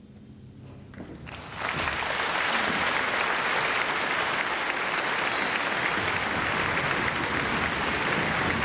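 The orchestra's last low notes fade away, and about a second and a half in the concert audience breaks into applause, which then carries on steadily.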